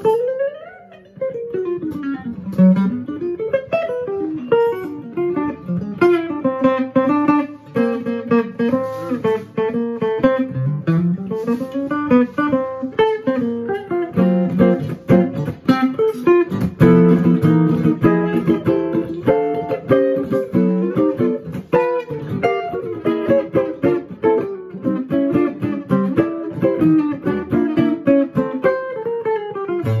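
Red hollow-body archtop electric guitar played solo in a jazz style, with quick runs of single notes mixed with chords.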